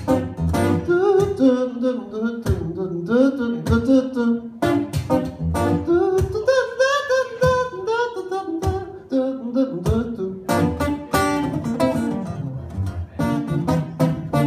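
Acoustic guitar strummed in a steady rhythm under a man singing a wordless "do, do, do" melody.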